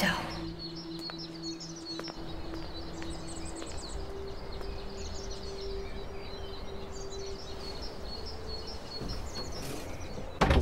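Outdoor evening ambience of rapid high chirping over a soft background hush, with a low held tone underneath that steps up in pitch about four seconds in. A sudden loud hit comes near the end.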